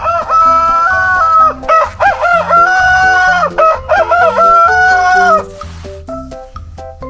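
A rooster crowing in a string of loud calls over background music with a steady beat. The calls stop about five seconds in, leaving only the music.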